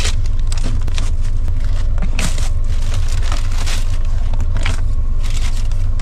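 Plastic grocery bags and food packaging crinkling and rustling as groceries are packed into a portable chest fridge, over a steady low rumble.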